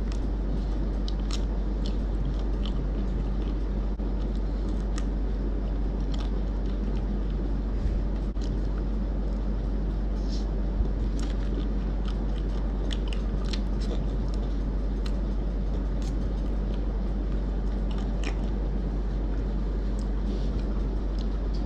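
Magnum Cookies & Cream ice cream bar being bitten and chewed up close: scattered small crunches and mouth clicks as the white coating with cookie bits is eaten off the stick, over a steady low hum.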